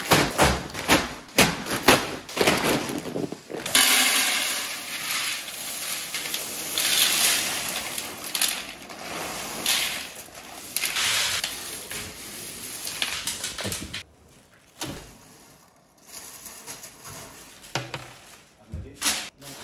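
Plastic sacks of dried beans dropped one after another onto a pile on a tiled floor, a quick run of thuds. Then dried beans poured from a plastic sack into an aluminium basin, a steady rattling rush lasting about ten seconds, followed by quieter rustling and clicking as beans are bagged.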